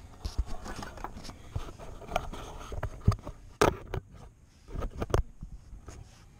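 Irregular handling noise of gloved hands working close to the microphone: light clicks, scrapes and knocks, with a sharper knock a little past three and a half seconds in and two more close together near five seconds.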